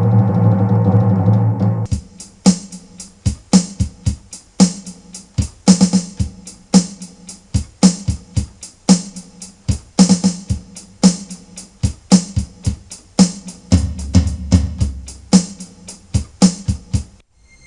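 Drum-kit voice of a Yamaha electronic keyboard playing a steady beat of kick drum and cymbal strikes. It starts about two seconds in, right after a low sustained tone breaks off, and stops shortly before the end.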